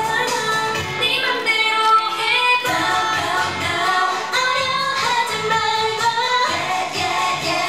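Female K-pop vocals sung into handheld microphones over a pop backing track with a steady beat.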